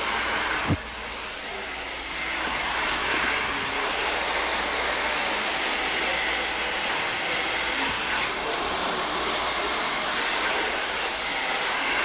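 Hand-held blow dryer running with a steady rush of air; a click and a brief drop in level come about a second in, then it blows steadily again.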